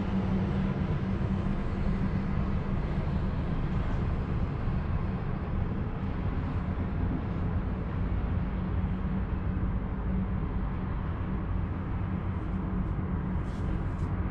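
Steady low rumble and hum inside a moving Emirates Air Line cable car gondola travelling along its cable, with a few faint ticks near the end.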